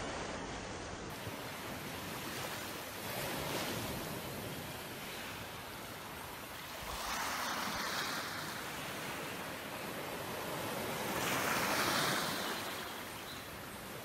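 Small waves washing up on a sandy beach in calm sea: a steady hiss of surf that swells twice, about halfway through and again near the end.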